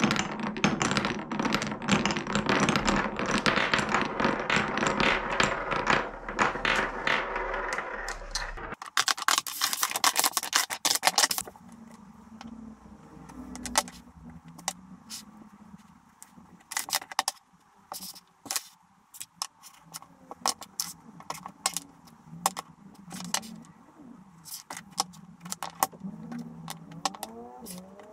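Solid wooden Cuboro cubes knocking and clattering against each other and a wooden tabletop. For the first eight or nine seconds it is a dense, continuous rattling clatter. After that come scattered single knocks as blocks are set down one at a time.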